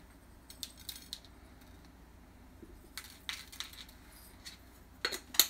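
Small seasoning jar shaken over food, its contents rattling in short bursts about a second in and again around three seconds in. A louder clack near the end.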